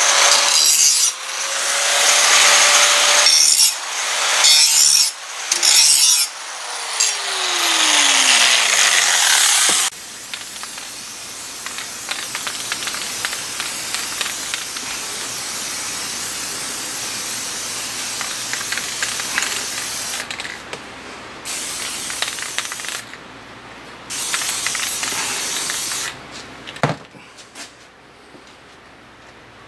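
A handheld grinder with a sanding disc works an outboard propeller in repeated bursts, its pitch winding up at the start of a pass and sliding down as it spins down. About ten seconds in this gives way to the hiss of an aerosol spray can painting the propeller black: one long spray, then shorter bursts with pauses.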